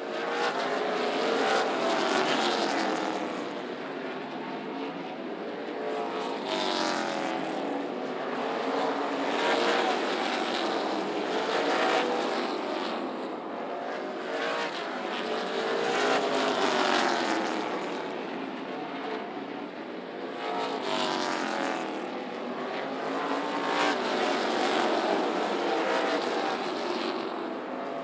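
NASCAR K&N Pro Series stock cars' V8 engines racing on a short oval. The engine note climbs and falls every four to five seconds as the cars lift through the turns and accelerate down the straights.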